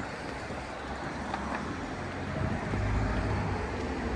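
Road traffic noise: a steady rumble of passing motor vehicles, swelling as one goes by about three seconds in.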